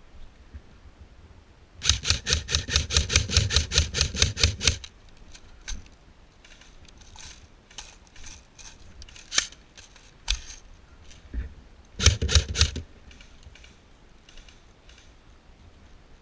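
Airsoft gun firing: a string of about twenty rapid shots lasting some three seconds, a few single shots, then a short burst of four or five shots.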